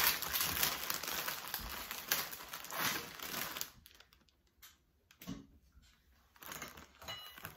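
Plastic bag of iced oatmeal cookies crinkling as the cookies are handled, for about the first three and a half seconds. After that it goes much quieter, with a few light taps.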